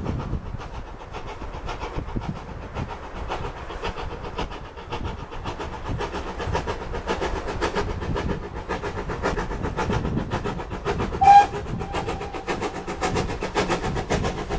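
Steam locomotive GWR 9351 approaching under steam, its rhythmic exhaust beats growing louder as it nears. About three quarters of the way through it gives one short whistle blast, the loudest sound.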